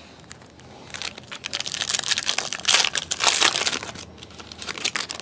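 A jumbo trading-card pack of 2014-15 Panini Prizm Basketball being torn open, its wrapper crinkling and crumpling. The sound starts about a second in, is loudest in the middle and dies down near the end.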